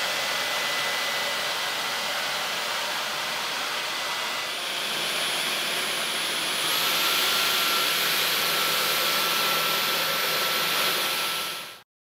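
Dyson cordless stick vacuum running: a steady rush of suction air with a high motor whine. The sound shifts about four and a half seconds in, the whine steps up in pitch a couple of seconds later, and it cuts off abruptly near the end.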